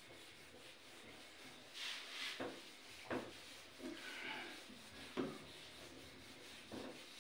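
A board duster wiping marker writing off a whiteboard in a series of short scrubbing strokes.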